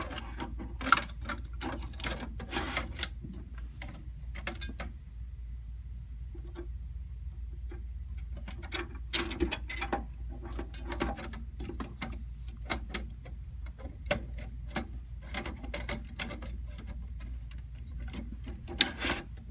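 Irregular small plastic clicks and rustling as fan cables are handled and their connectors pushed onto the motherboard's fan headers, over a steady low hum.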